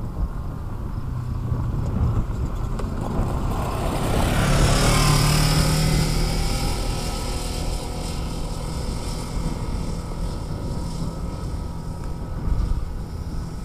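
Military side-by-side utility vehicle's engine running as it drives close past, loudest about four to six seconds in, then easing off as it pulls away, with its tyres on a gravel road.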